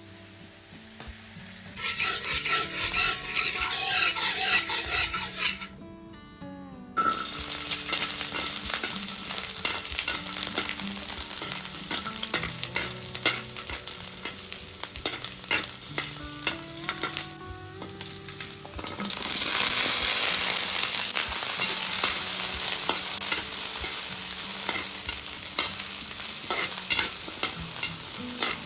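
Food sizzling and frying in a hot pan while it is stirred, the utensil clicking and scraping against the pan. There is a short break about six seconds in, and the sizzle grows louder about two-thirds of the way through.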